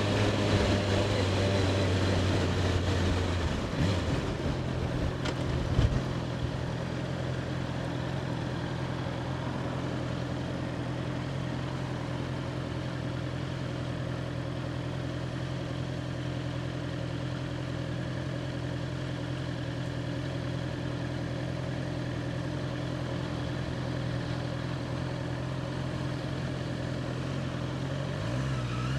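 Honda CBR650R's inline-four engine running steadily under the rider, with light wind and road noise. Its note shifts about four seconds in and then holds even.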